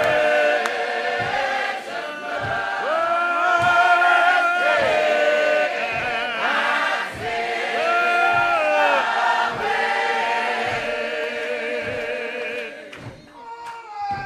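Gospel hymn choir singing a slow African-American spiritual, the voices holding long, wavering notes over a low thump about once a second. The singing drops away near the end.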